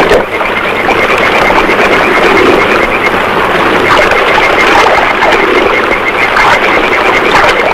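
Loud, steady rush of churning water with swimmers splashing through it, with a faint fast rhythmic rasp running underneath.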